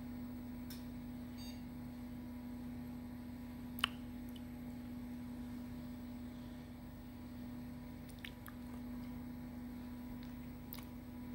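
Steady low hum of a desktop computer running through a reboot, with one short sharp click about four seconds in.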